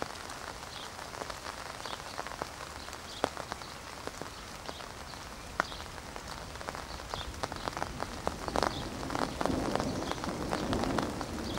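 Rain falling steadily, with many sharp clicks of drops hitting a nearby surface. A low rumble grows louder near the end.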